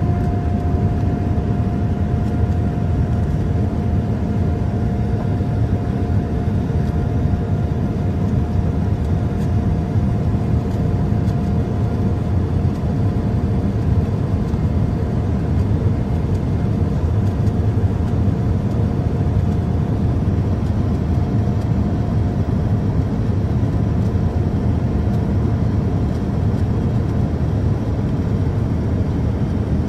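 Boeing 787-9 cabin noise during the climb after takeoff, heard from a window seat beside the wing: the steady roar of its GE GEnx-1B turbofans and rushing air, with a faint steady whine that fades out about two-thirds of the way through.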